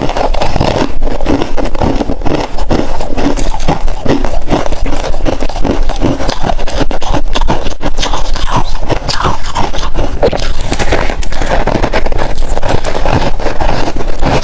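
Close-miked crunching of freezer ice being chewed: a dense, unbroken run of crisp cracks and crunches.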